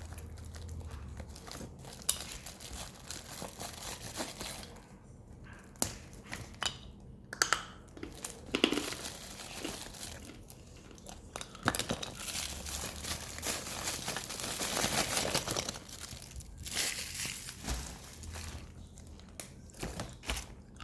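Parcel packaging being crinkled and torn open, with many sharp clicks among the rustling and a louder, longer stretch of crinkling a little past the middle.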